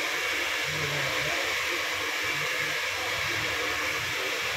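Steady, unchanging blowing hiss of an electric blower, the kind of airflow noise a hair dryer running in a barber shop makes.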